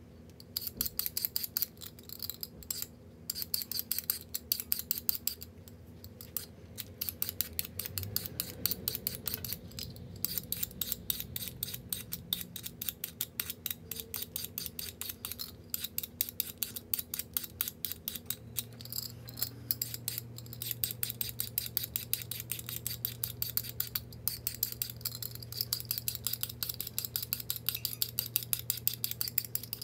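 Knife chopping carrot on a cutting board in a fast, even run of sharp taps, several a second, sped up to double speed. A steady low hum joins about two-thirds of the way through.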